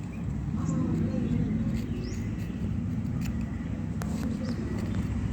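A steady low mechanical hum, like a vehicle engine running, with faint bird chirps and a few light clicks, the clearest about four seconds in.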